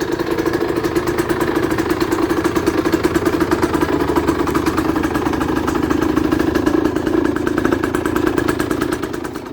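Small 50cc two-stroke motorcycle engine running steadily, with a fast, even firing beat.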